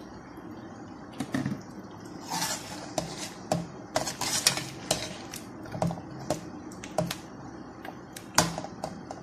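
Metal ladle scraping and clinking against a metal cooking pot while stirring chicken through a thick yogurt and onion paste. The strokes are irregular and start about a second in.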